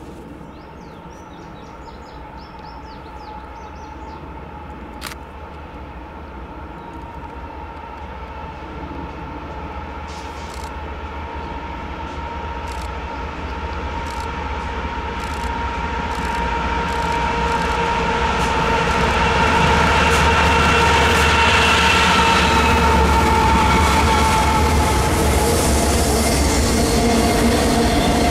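Freight train led by two GE diesel locomotives (an ES44C4 and an AC44C6M) approaching and passing beneath. The engine sound grows steadily louder and drops in pitch near the end as the locomotives go by, then the autorack cars roll past with wheel clatter.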